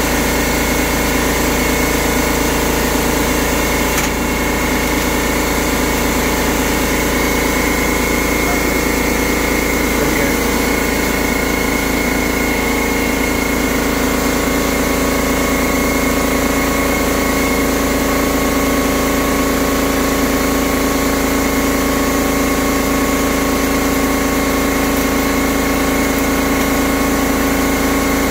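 Air compressor running steadily while compressed air blows from a hose over the aluminum quench plates to cool the steel blade during a plate quench.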